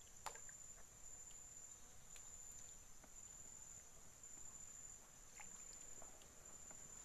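Near silence with a faint, steady, high-pitched drone of insects, broken by one sharp faint click just after the start and a few softer ticks.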